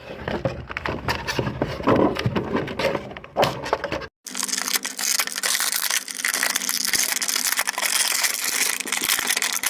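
Action-figure packaging being torn open and handled: cardboard box and plastic tray crackling and crinkling. After about four seconds the sound breaks off, and a steady hiss with a low hum carries on under further rustling and clicks.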